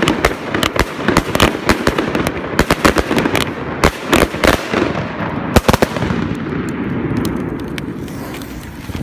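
Fireworks going off in a rapid, dense barrage of bangs and crackling. About six seconds in the bangs thin out into a smoother noise that slowly fades.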